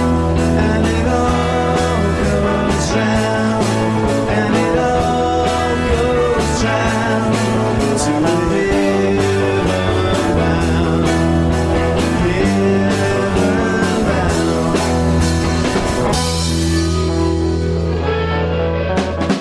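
Rock song with guitar, bass and drums and some singing. Just before the end the track breaks off briefly and a new passage starts.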